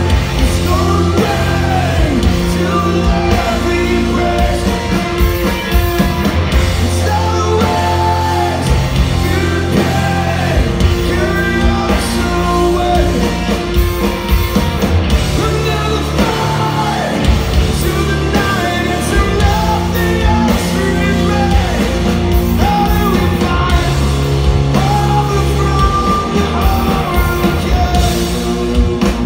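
Live rock band playing loud through a club PA: electric guitars, bass and drum kit, with a lead vocal singing over them.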